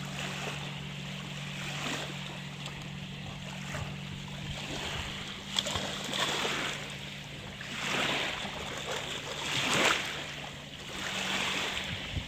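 Lake water lapping and splashing in the shallows as dogs wade and swim through it, with wind on the microphone. The splashing swells several times, loudest near the end.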